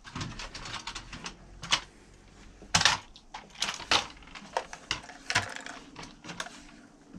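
Irregular sharp plastic clicks and taps from a small toy-grade RC truck being handled, with a few louder knocks about three and four seconds in.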